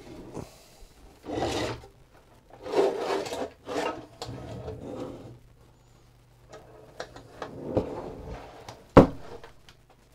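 Pressed-steel cover of an ECG monitor rubbing and scraping against the chassis as the unit slides out, in several separate strokes. A single sharp knock about nine seconds in is the loudest sound.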